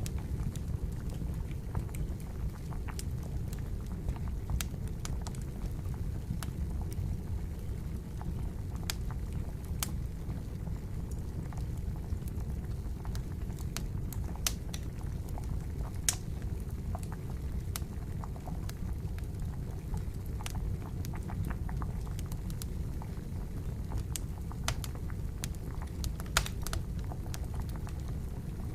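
Wood fire crackling with irregular sharp pops, over the steady low bubbling of water at a boil.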